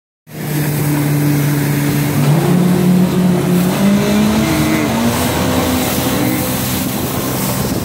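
A 2007 Yamaha WaveRunner FX Cruiser HO's four-stroke engine running at low speed, then revving up about two seconds in and again about five seconds in as the watercraft accelerates. Wind and water spray make a steady rush underneath.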